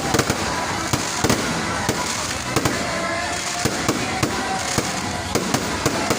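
Fireworks going off: sharp bangs and crackles at irregular intervals, about one or two a second, over a steady background din.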